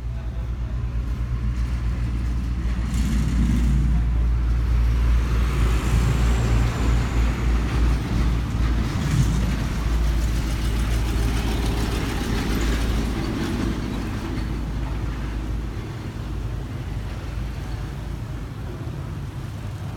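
Low motor-vehicle engine rumble that builds over the first few seconds, is loudest in the middle, then eases off.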